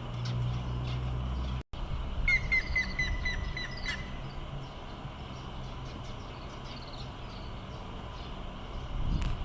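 Grey-headed woodpecker calling: a run of about eight clear whistled notes, roughly five a second, starting about two seconds in. Fainter short bird notes follow, and there is a low thump near the end.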